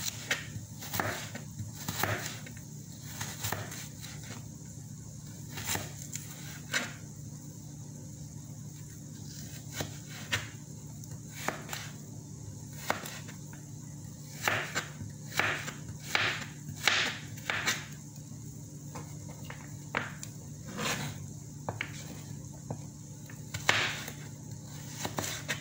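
Kitchen knife cutting raw carrot into sticks on a plastic cutting board: irregular crunching knocks of the blade through the carrot onto the board, about one a second, coming faster and louder in the middle stretch. A steady low hum runs underneath.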